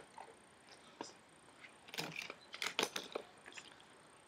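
A Supra Skytop high-top sneaker being handled and turned over in the hands: a scatter of short clicks, taps and scuffs, one about a second in and a denser run of them in the second half.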